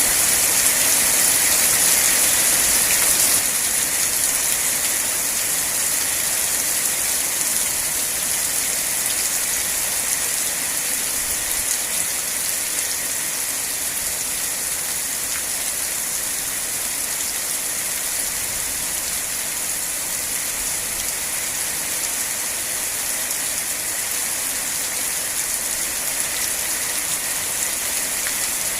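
Steady rain falling, heard as an even hiss that steps slightly quieter about three seconds in.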